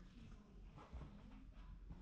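Near silence: faint room tone with a low steady hum and a few faint soft knocks.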